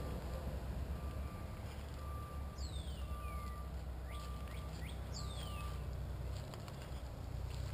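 Outdoor yard ambience: a steady low rumble, a faint electronic beep repeating about once a second through the first half, and two bird calls that sweep downward in pitch.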